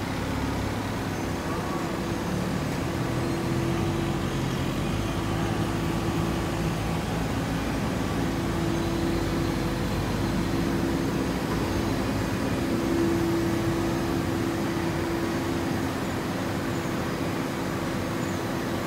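Steady industrial machine hum with a constant tone, from a horizontal hydraulic baler and its feed conveyor running. A lower drone is also there for the first several seconds, then fades.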